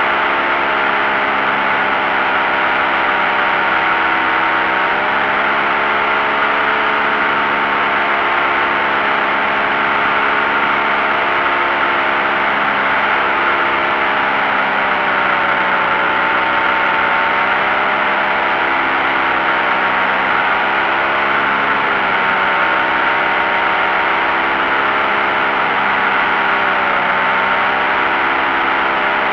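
Paramotor's two-stroke engine and propeller running steadily in flight, the pitch sagging slightly a couple of times, over a steady rush of air.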